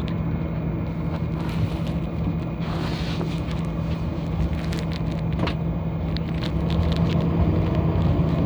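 City bus engine running with a steady low drone, heard from inside the passenger cabin, with scattered clicks and rattles.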